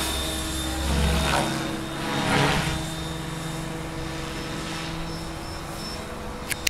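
Mikado Logo 600 radio-controlled helicopter in flight: a steady whine from its electric motor and rotor, with the blade noise swelling twice, about one and two and a half seconds in. A couple of sharp clicks near the end.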